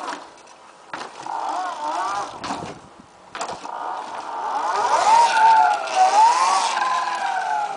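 Electric Motion electric trials bike's motor whining, its pitch sliding up and down with the throttle and loudest in the second half. A few sharp knocks sound about one, two and a half and three and a half seconds in.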